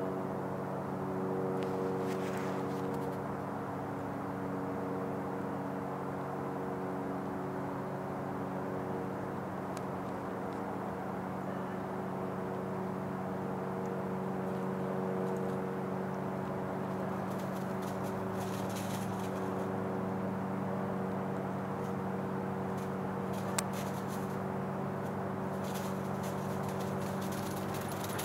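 A steady mechanical hum of several held tones, as from a motor or engine running, with a few faint clicks over it.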